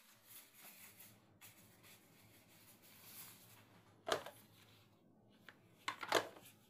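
Plastic gloves rustling softly as dough is handled, then sharp plastic clacks from a hinged plastic pastry press, once about four seconds in and again in a quick cluster near the end as its lid is worked open.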